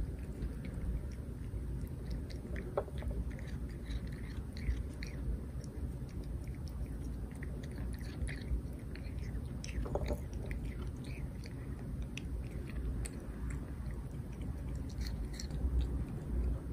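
A cat chewing small pieces of fruit fed from the hand, with many quick, irregular crunching clicks.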